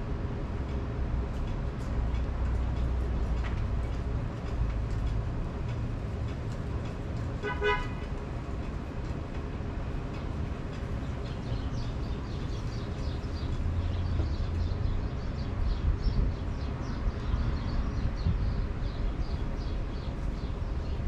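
A steady low engine rumble, with one short vehicle horn toot about seven and a half seconds in. From about eleven seconds, a rapid run of faint high ticks joins it.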